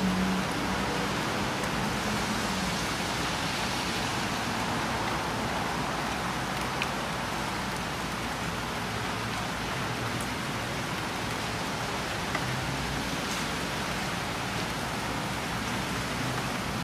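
Heavy rain pelting a car's roof and windshield, heard from inside the car: a steady hiss with a few sharper drop hits.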